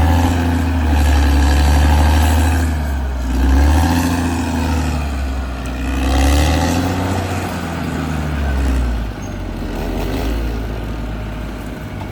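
Caterpillar D6R XL bulldozer's diesel engine working under changing load, its note rising and falling again and again as it pushes soil.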